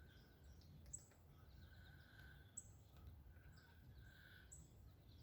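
Faint outdoor ambience with short, very high bird chirps repeating about every two seconds over a low background rumble.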